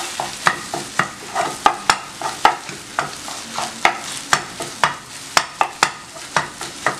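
A spatula tapping and scraping in a granite-coated nonstick frying pan, two or three strokes a second, as it breaks up and stirs set egg through okra, over a light sizzle of frying.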